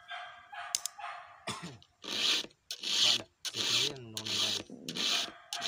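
A file rasping across the cutter teeth of a chainsaw chain as it is sharpened by hand. The strokes start about two seconds in and come evenly, about one and a half a second.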